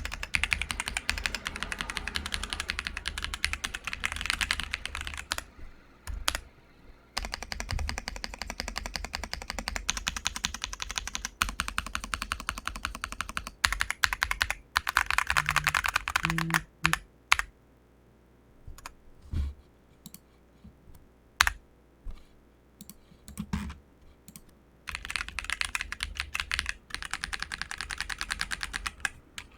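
ASUS ROG Azoth mechanical keyboard with ROG NX Red linear switches, a polycarbonate plate and layered foam and PET-film mods, being typed on. Fast runs of keystrokes give way in the middle to a slower stretch of single, separate key presses, and fast typing resumes near the end.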